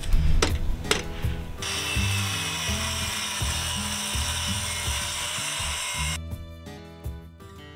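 Circular saw cutting through a siding panel: a few sharp clicks, then a steady hiss of the blade in the cut that stops abruptly about six seconds in. Background music plays underneath and is left alone at the end.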